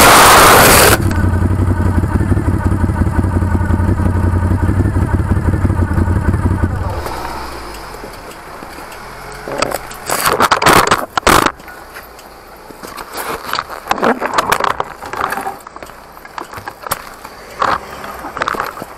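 A loud crash impact in the first second as a Moto Guzzi V7 motorcycle goes down, then the bike's air-cooled transverse V-twin engine keeps running steadily for about six seconds before it stops. After that come scattered scrapes and clatters, louder around ten seconds in.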